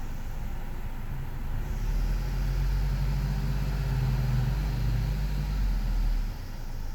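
Turbocharged car engine running, with a low hum and a hiss that swell about a second and a half in and cut off suddenly near the end. It is the noise the owner cannot place as either a boost leak or an exhaust leak.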